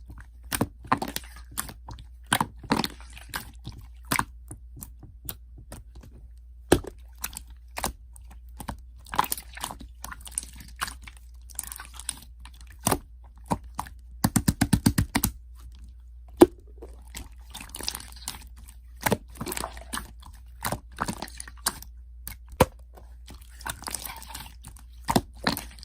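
Slime being squished and pressed by hand: irregular sharp sticky clicks and crackling pops, with a quick run of about a dozen clicks in a row near the middle, over a faint low hum.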